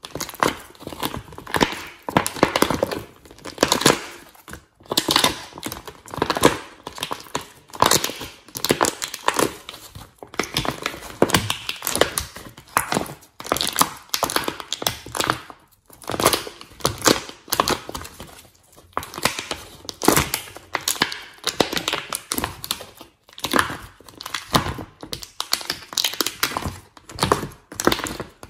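Thin plastic palette tray crackling and crinkling as fingers press into its paint-filled wells, mixed with the sticky squishing and popping of slime being pressed and kneaded. Short crackles and pops come irregularly, several a second, throughout.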